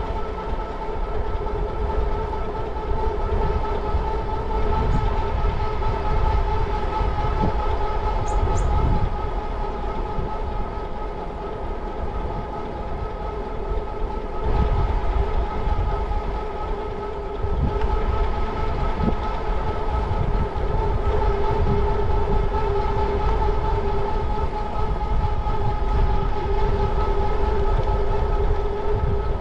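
Electric bike's drive motor whining steadily at cruising speed, a high hum of several pitches held even throughout, over low wind and tyre rumble.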